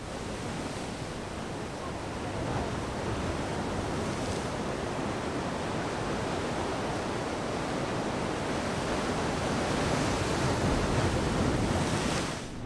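Ocean surf surging and breaking against the boulders of a rock breakwall: a steady rushing wash of water that swells a little louder near the end.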